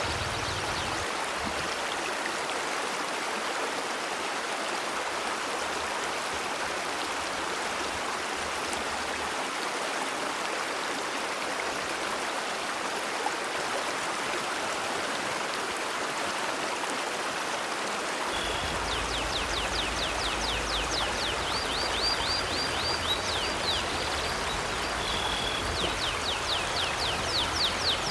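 River stream flowing steadily, a constant rushing of water. About two-thirds of the way in, a small bird starts chirping in quick high trills and short whistles, and a low rumble joins underneath.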